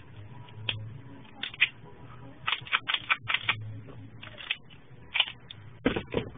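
A string of sharp clicks and clacks from a Taurus Millennium Pro PT111 9mm pistol's slide and frame being handled and put back together, with a heavier knock just before the end as the pistol is laid down in a plastic tub.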